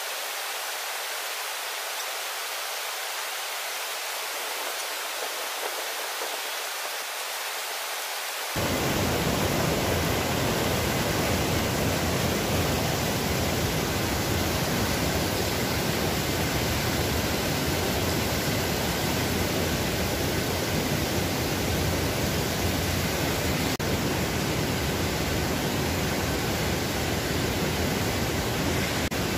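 Steady rushing of a rocky mountain stream, an even hiss of water. About eight and a half seconds in it jumps louder and fuller, with a low rumble added.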